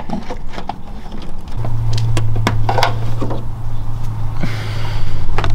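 Scattered clicks and light knocks of hands working the bonnet cable and its cracked rubber grommet in a car's engine bay. A steady low hum comes in about a second and a half in.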